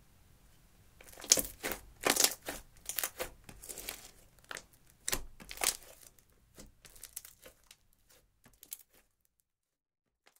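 Clear slime mixed with blue eyeshadow being stretched and pulled apart, giving a run of irregular sticky crackles and pops. The crackles start about a second in, are loudest early, then thin out and stop about nine seconds in.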